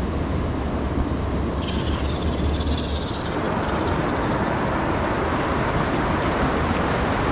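Small-scale RC rock crawler's electric motor and gears whirring as it climbs between rocks, over a low rumble. About three seconds in this gives way to the steady rush of river rapids.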